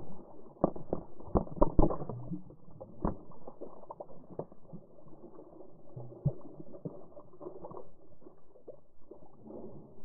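Bare feet kicking and splashing lake water, heard muffled from a camera at the water line, with sharp knocks as spray strikes it. A dense run of knocks comes about a second in, then single knocks every second or two over an uneven wash of water.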